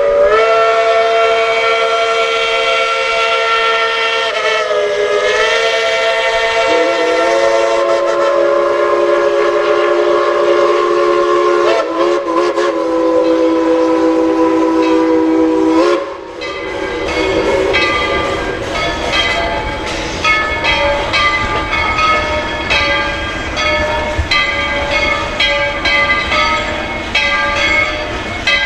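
Steam locomotive whistle blowing one long chord of about sixteen seconds, its pitch shifting a few times, then the train running by with a steady series of short knocks and clanks.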